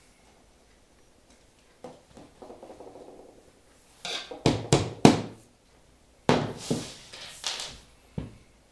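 Rubber mallet knocking cam-lock fittings into the holes of an IKEA Kallax shelf panel: three quick knocks about halfway in, another cluster of knocks a second later, and a last single knock near the end.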